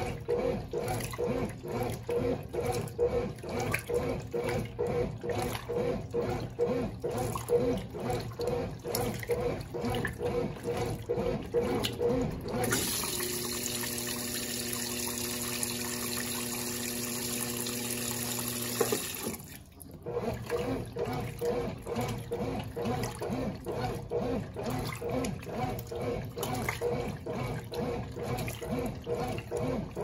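Brastemp Baby Mondial top-loading washing machine agitating its load in water during the rinse: a rhythmic sloshing and churning from the agitator. Part-way through the agitation stops for about six seconds of a steady hum with a hiss, which cuts off abruptly before the sloshing starts again.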